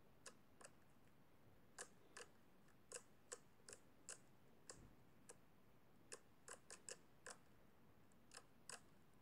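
Faint, irregular crackling clicks and pops, about two a second, from pink foamy slime being poked and squeezed by fingers as its air pockets burst.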